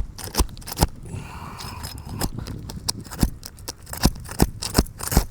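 Irregular sharp knocks and taps, about ten of them, from tool work on asphalt roof shingles as they are pried loose from a strongly bonded seal strip.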